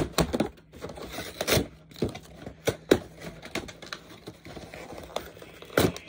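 Cardboard collector's box and its plastic tray of cards being handled and pulled apart: scattered scrapes, crinkles and knocks, the loudest near the start, at about three seconds and near the end.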